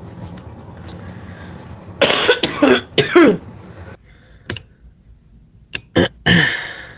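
A woman coughing in two fits: three or four hard, voiced coughs close together about two seconds in, then two short coughs and a longer one near the end.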